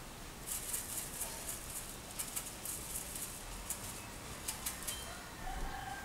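Budgerigar scratching and digging in loose seed inside a plastic hanging seed cup: a run of quick, crisp scratches and clicks. A short budgie chirp near the end.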